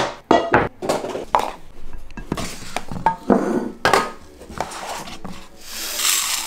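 Metal cookware knocking and clanking, then toasted whole spices (coriander, fennel seed, black peppercorns) sliding off a small metal baking tray and rattling into a stainless steel pot. The rattle is loudest near the end.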